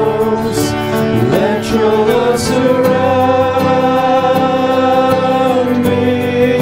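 A slow worship song sung by a vocalist with instrumental accompaniment, the voice holding one long note through the middle.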